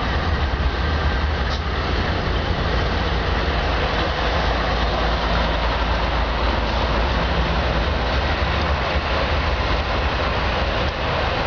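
Several BNSF diesel locomotives moving together as a light engine consist, their engines running with a steady low drone over the rumble of wheels on rail.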